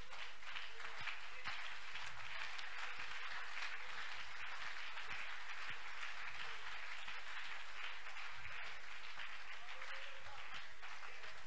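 Many people clapping steadily together: a congregation applauding, quieter than the preaching around it.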